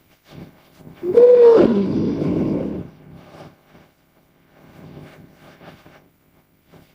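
Imagined Bajadasaurus (sauropod dinosaur) call from a sound effect: one loud roar of about two seconds, its tone rising and then falling over a rough rasp. Fainter rough sounds follow.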